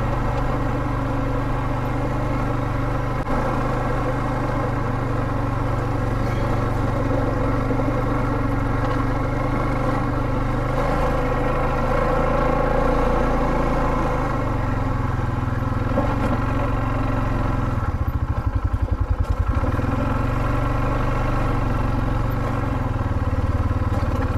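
Polaris Sportsman 570 ATV's single-cylinder engine running steadily as it is ridden along a trail, with a short stretch of rapid low pulsing about three quarters of the way through.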